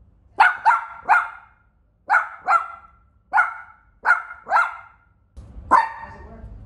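A small dog barking: nine short, sharp barks in quick uneven groups of one to three.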